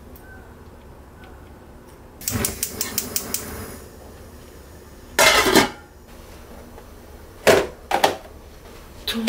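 Gas stove igniter clicking rapidly, about four clicks a second for a second and a half, about two seconds in. A louder short clatter follows about five seconds in, then two sharp knocks near the end as plastic food containers are set down on a wooden cutting board.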